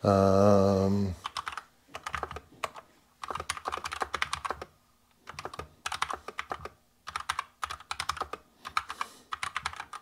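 Typing on a Keychron K2 aluminum mechanical keyboard: runs of rapid key clicks with short pauses between them. A loud held low hum opens it for about a second.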